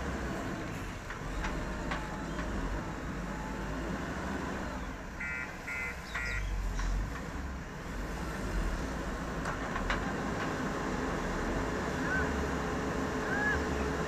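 JCB 4DX backhoe loader's diesel engine running with a steady low rumble. About five seconds in come three short beeps in quick succession.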